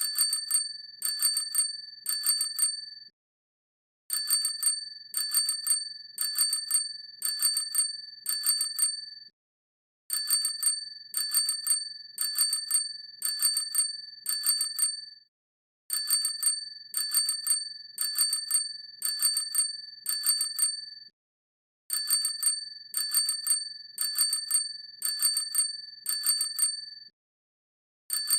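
Bicycle hand bell rung repeatedly, a quick series of strikes in runs of about five seconds with short silent pauses between them. Each strike leaves a high ring with several tones that carries on into the next.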